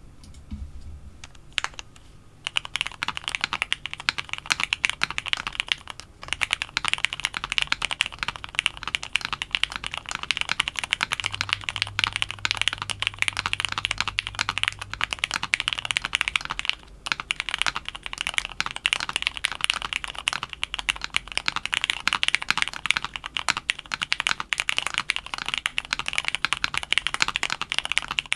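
Fast continuous typing on a custom mechanical keyboard with lubed Cherry MX Black linear switches in an aluminium plate and CRP keycaps: a dense run of key clacks, starting with a few single presses, with brief pauses about 6 and 17 seconds in.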